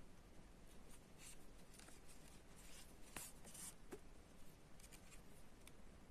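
Near silence with a few faint, scratchy rustles, the busiest about halfway through: yarn being drawn through crocheted fabric and fingers handling the stuffed toy as a wing is hand-sewn onto an amigurumi duck.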